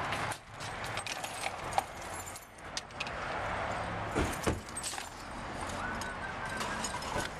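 A bunch of car keys jangling and clinking in a hand, with scattered small clicks and a couple of sharper knocks about four seconds in as someone settles into a car's driver's seat.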